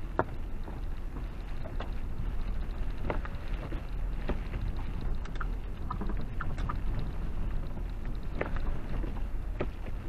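A car driving on a snowy road, heard from inside: a steady low rumble of tyres and engine, with scattered light knocks and clicks.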